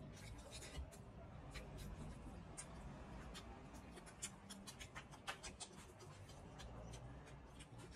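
Eating sounds: irregular wet clicks and smacks of chewing and mouth noise as curry rice and pork belly are eaten by hand, over a faint low hum.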